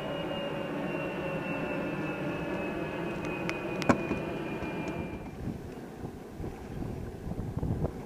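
A boat motor's steady whine, falling slightly in pitch, cuts off about five seconds in. A few sharp clicks come just before it stops. Wind on the microphone and water slapping the hull follow.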